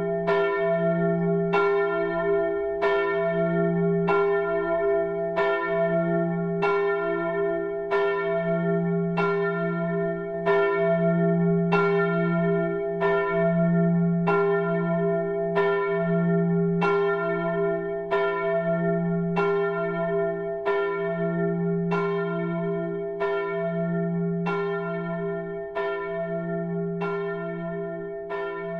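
Church bell tolling steadily, struck about once every 0.8 seconds, each stroke ringing on under the next; it grows slightly fainter near the end.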